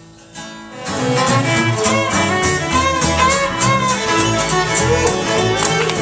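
Live folk string band playing an instrumental passage: fiddle leading over strummed acoustic guitar and plucked upright bass. After a hushed moment the full band comes in loud about a second in.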